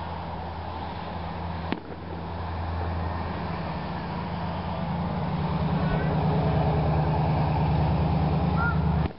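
Steady low rumble under a fireworks display, growing louder from about three seconds in, with one sharp pop about two seconds in.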